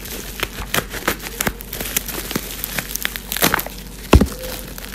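Plastic gift wrapping crinkling and tearing as a present is unwrapped by hand, with many short sharp crackles. A single louder thump comes a little past four seconds in.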